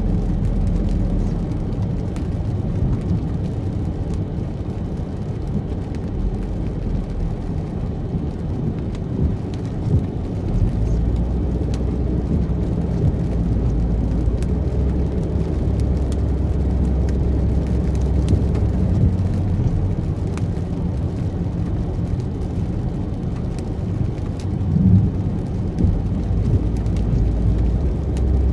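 Steady low rumble of a car driving, road and engine noise, with faint scattered ticks of rain during a thunderstorm.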